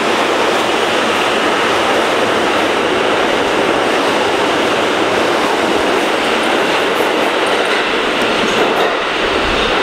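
R160-series New York City subway train running past an underground platform at speed: a loud, steady noise of steel wheels on the rails and the cars' running gear. It eases slightly near the end as the last car passes.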